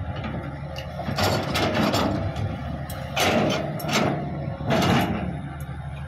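Heavy diesel engines of a Hitachi 200 excavator and a Caterpillar D6G bulldozer running steadily in mud. From about a second in there are several loud metal scrapes and squeals that slide down in pitch, the loudest around three and five seconds in.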